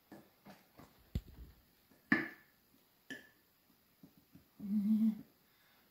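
Metal spoon scooping flour out of a glass jar into a measuring cup: soft scrapes and taps, a dull knock about a second in, and two sharper clinks with a short ring about two and three seconds in. A brief hummed voice near the end.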